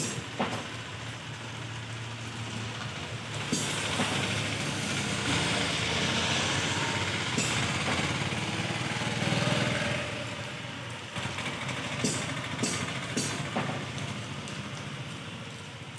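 Handheld power polisher's motor running steadily, getting louder and harsher from about three and a half to ten seconds in, with a few sharp clicks near the end.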